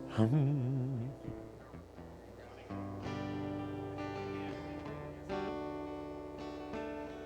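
Instrumental music on guitar: a wavering note just after the start, then held chords from about three seconds in, restruck near five seconds.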